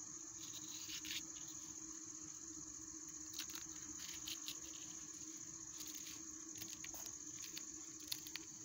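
A kitchen knife slicing a green chilli held in the hand, giving scattered faint clicks as the blade cuts through and bits drop into a plastic basket. Underneath is a steady high-pitched whine and a low hum.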